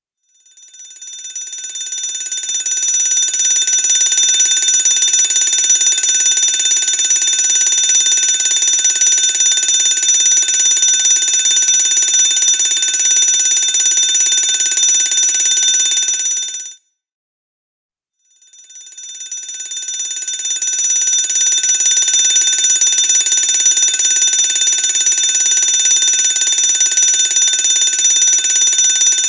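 Fire alarm bell ringing continuously. It fades in over a few seconds, cuts off suddenly about 17 seconds in, and after a pause of about a second and a half starts again and fades back in.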